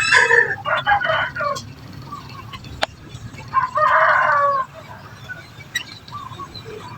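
Domestic chickens calling: a burst of calls in the first second and a half, then a rooster's crow of about a second around four seconds in. A single sharp click sounds just before the crow.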